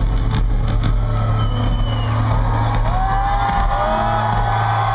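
Concert arena sound at a hip-hop show: a steady, heavy low bass hum from the PA under dense crowd noise, with a few rising whoops from the audience in the second half.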